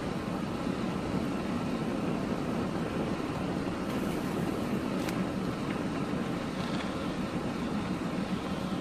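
Car driving slowly along a snow-covered road: a steady rumble of engine and tyres on snow, with a brief faint click about five seconds in.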